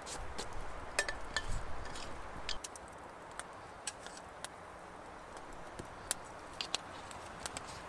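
Wood campfire crackling with scattered sharp clicks, and light clinks of a small glass jar against a metal kettle; low bumps from handling in the first couple of seconds.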